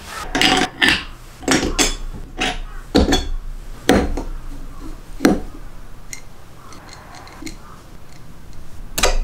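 Metal parts and hand tools clinking against each other: a string of sharp metallic clinks over the first five seconds or so, a quieter stretch, then one more clink near the end.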